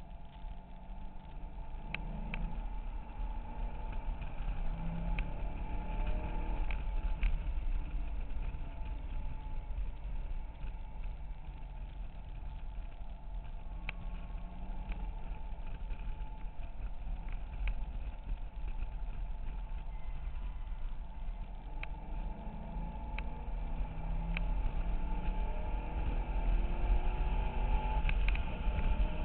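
C6 Corvette Z06's 7.0-litre V8 heard from inside the cabin under hard track driving. Its pitch climbs as it accelerates early on and again, getting louder, near the end, over a steady low road-and-wind rumble. A few faint clicks come through.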